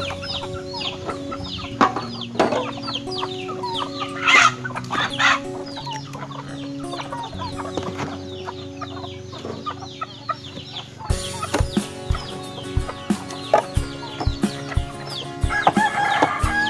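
Chickens clucking with rapid high cheeping throughout, and a louder call near the end, over background music with steady held notes and a regular beat in the second half.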